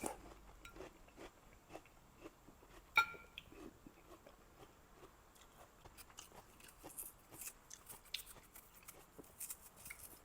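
Faint, scattered small clicks and taps of cups and dishes being handled, with one sharp, briefly ringing clink about three seconds in.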